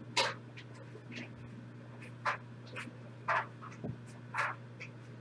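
Short papery swishes and scrapes, about six spread unevenly over five seconds, from football trading cards and their pack wrappers being handled and slid, over a steady low electrical hum.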